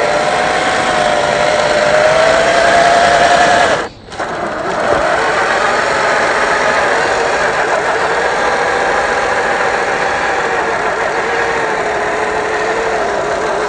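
Electric motor and geared drivetrain of an Axial SCX10 III RC crawler whining, the pitch wavering up and down with the throttle. The sound drops out briefly about four seconds in, then picks up again.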